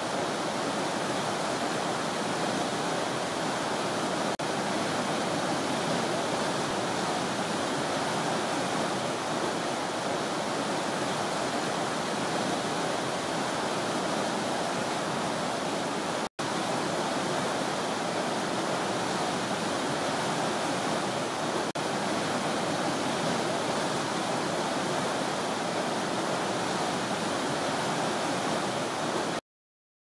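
Fast-flowing river rushing over rocks: a steady, loud water noise that breaks off for an instant about halfway through and stops shortly before the end.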